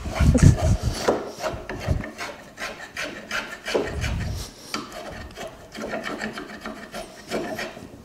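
A metal spokeshave being pushed in quick, repeated strokes along a wooden spoon handle, its blade scraping off curls of wood in short, uneven pulls.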